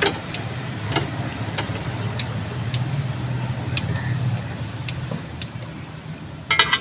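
Scattered light metal ticks and, near the end, a quick run of sharp ringing clinks as a tool works the timing-belt tensioner spring off a Maruti 800 engine, over a steady low hum.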